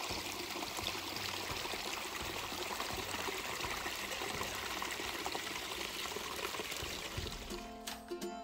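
Small woodland stream trickling and splashing over mossy rocks, a steady rush of water. Music fades in near the end.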